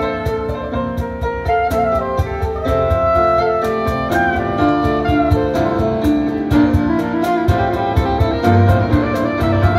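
Soprano saxophone playing a jazz melody over grand piano chords, with a steady beat tapped on a cajon.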